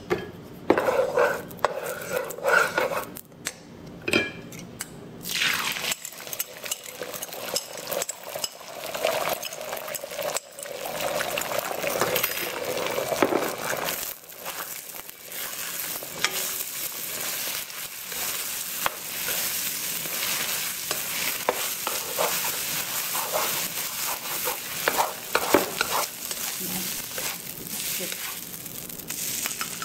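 Beaten egg sizzling in hot oil in a nonstick wok, with a spatula scraping and stirring as it scrambles. A few clinks come first, and the sizzle starts about five seconds in.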